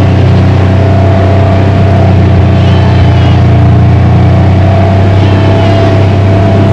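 Vehicle engine running steadily while driving along, heard loud and close from on board, with a steady whine over the low drone.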